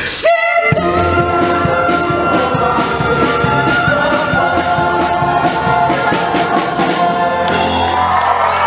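Ensemble of singers with a pit band and brass holding a long, loud final chord of a show tune, after a quick upward sweep in the first second. Applause begins as the chord ends, near the end.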